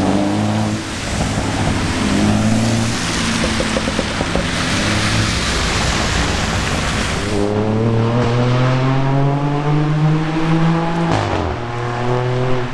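BMW M3 G80 Competition's twin-turbo inline-six through a titanium R44 performance exhaust, accelerating. Its note runs under a loud rushing noise at first, climbs steadily from about halfway, then drops sharply at an upshift near the end and pulls again.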